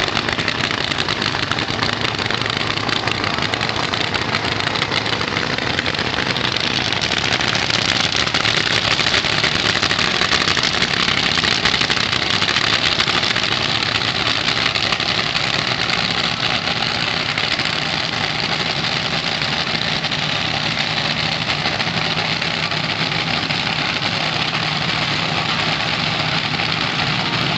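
Supercharged, nitro-burning fuel altered drag-car engines running loud and unmuffled, a continuous dense roar that swells for several seconds from about eight seconds in.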